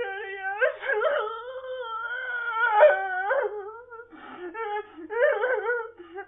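A high, drawn-out wail whose pitch wavers and quivers, held for several seconds with a few short breaks and loudest about three seconds in.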